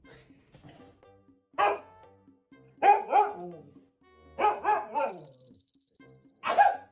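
A dog barking in short, sharp barks: one, then a pair, then three in quick succession, then a single bark near the end.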